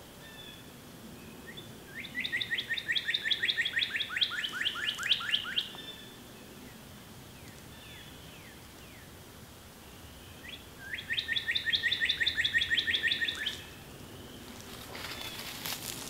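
Northern cardinal singing: two rapid phrases of quickly repeated down-slurred whistles, each about three to four seconds long, with a few soft single notes between them. A rustle comes near the end.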